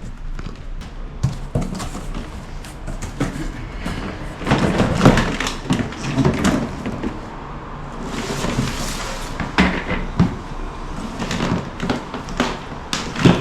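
Handling noise from a shop vacuum and its plastic parts and accessories being moved about: irregular knocks and thumps, with a brief rustle about eight seconds in.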